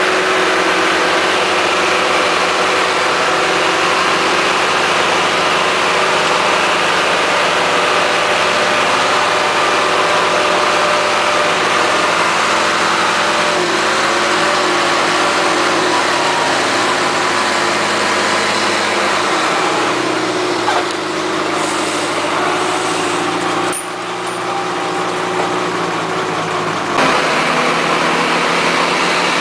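Engines running steadily under a tow through deep mud: a farm tractor pulling a vehicle on a winch cable, with the towed vehicle's own engine also running. The sound thins and drops slightly for several seconds about two-thirds of the way through, then returns.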